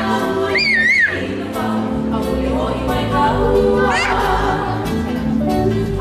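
Live music with singing and guitar accompaniment. A high voice wavers up and down about a second in and again near four seconds.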